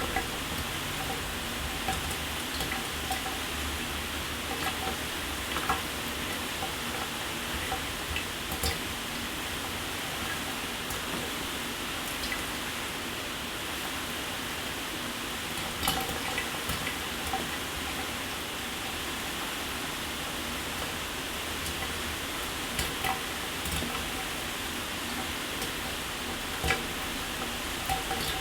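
Shower water spraying steadily, with occasional sharper splats of drops scattered through it.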